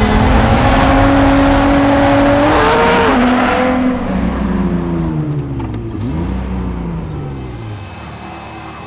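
Drift car engine running hard and loud at first, then revving up and down several times as it fades away over the last few seconds.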